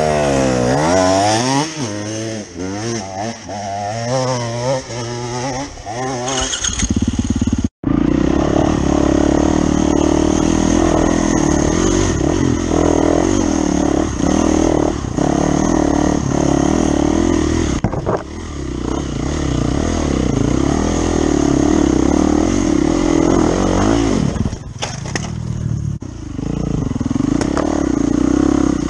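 Dirt bike engine revving hard, its pitch rising and falling repeatedly as a bike climbs a steep dirt hill. After a sudden cut about eight seconds in, a dirt bike runs steadily on the trail, heard close up from the rider's own bike with road and wind noise.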